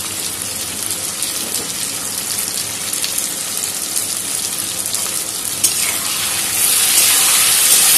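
Potato wedges frying in hot oil in an aluminium kadai, a steady sizzle. A spatula clicks against the pan about five and a half seconds in, and the sizzle then grows louder as stirring begins.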